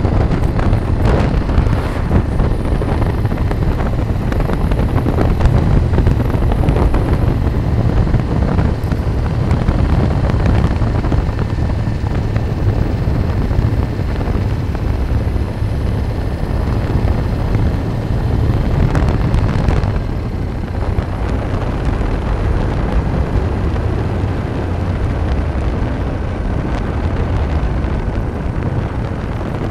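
Wind buffeting the microphone over steady road and engine noise from a moving vehicle.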